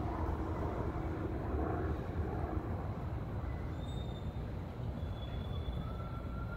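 Steady low rumble of outdoor background noise, with a few faint, thin high tones in the second half.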